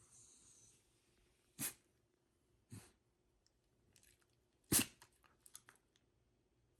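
Shiba Inu snorting short puffs of air through its nose three times, the last the loudest, as if about to sneeze: loose fur is tickling its face.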